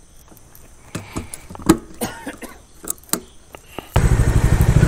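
A few sharp clicks and knocks, then a motorcycle engine starts suddenly about four seconds in and runs with a steady, rapid beat.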